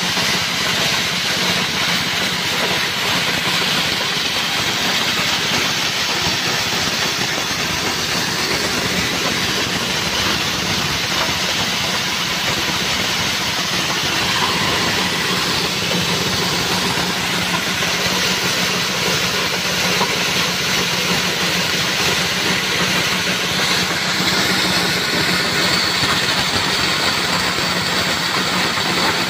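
Multifunction chopper machine running steadily, driven by a belt from a small petrol engine, its rotor and engine making a loud continuous rushing hiss over an engine hum as material is chopped and blown out of the chute.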